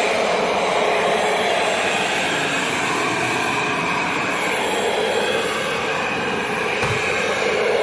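Bagless vacuum cleaner running steadily, a continuous motor whine and airflow rush, with a brief low bump near the end.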